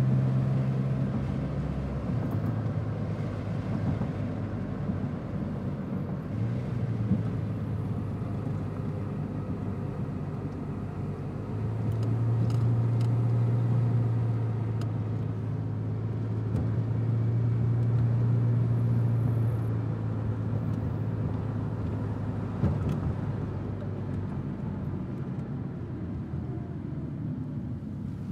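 A car driving, with a steady low engine hum over road and tyre noise. The engine note steps up about six seconds in and swells louder twice, around twelve and eighteen seconds in.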